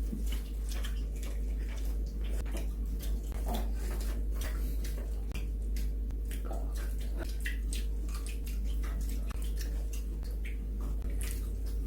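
A person chewing fried chicken, with many quick crisp crunches and smacks over a steady low hum.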